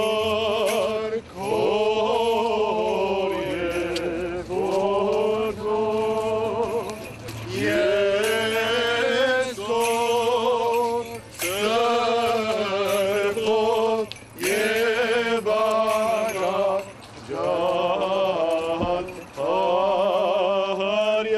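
A man chanting an Armenian church hymn in phrases of one to two seconds, with wavering, ornamented notes and short breaks for breath.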